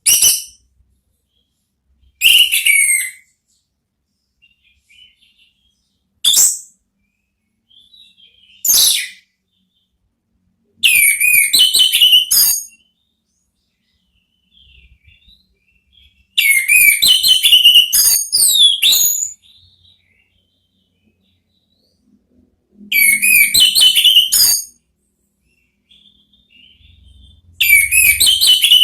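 Orange-headed thrush (anis merah) singing in separate loud phrases with pauses between: four short whistled notes, then, from about eleven seconds in, four longer phrases of rapid, varied notes, each lasting a second and a half to three seconds.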